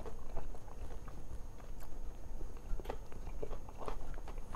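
A person chewing a mouthful of a plant-based mushroom-and-walnut burger patty, with faint scattered mouth clicks.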